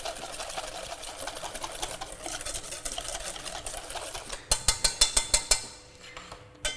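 Wire balloon whisk beating egg yolk and sugar in a stainless steel bowl: rapid, steady ticking of the wires against the metal, turning into louder separate strikes, about six a second, a little after four seconds in, then stopping near the end.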